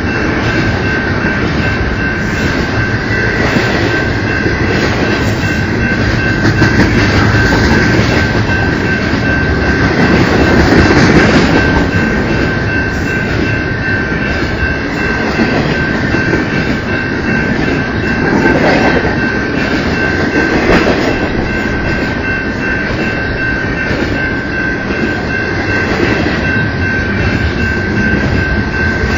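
Train passing, its railcars rolling by steadily. A steady high-pitched whine holds throughout the pass.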